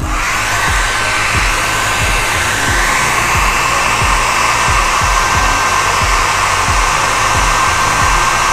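Handheld hair dryer switched on and running steadily: a rush of blown air with a thin, steady high whine over it.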